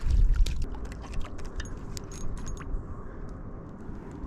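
Fishing reel being wound in after a cast: a run of small mechanical clicks and ticks, with a low rumble in the first half second.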